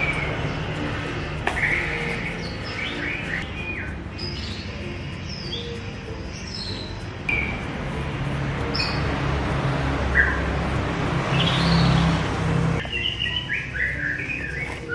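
Small birds chirping, with short, scattered tweets and calls throughout, over a low steady background hum.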